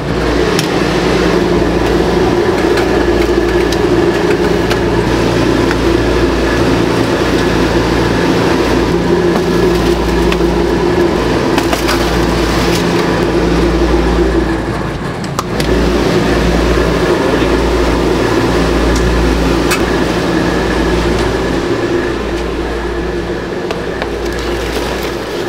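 Steady, loud hum of commercial kitchen machinery, with a deep rumble under it, easing briefly about fifteen seconds in.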